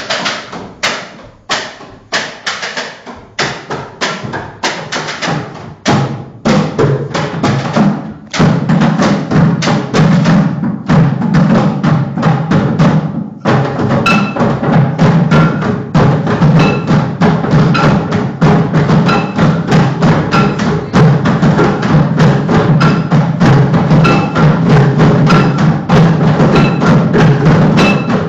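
Rhythmic percussion of hollow knocks and thuds, several strikes a second. About eight seconds in it gets louder and denser as a steady low sound joins.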